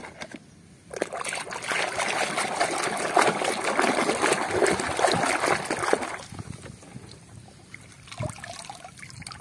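Muddy water sloshing and splashing as a plastic toy fighter jet is swished and scrubbed by hand in a tub, from about a second in until about six seconds. After that the sound drops to quieter trickling and dripping as the toy is lifted out of the water.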